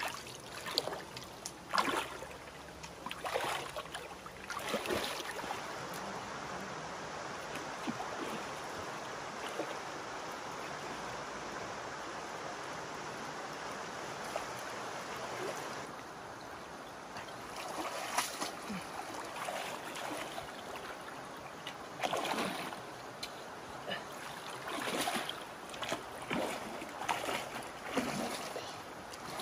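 Splashing in shallow muddy water as a person wades and sweeps a bamboo scoop net and hands through it, in irregular bursts; through the middle stretch the splashing gives way to a steady rush of running water before picking up again.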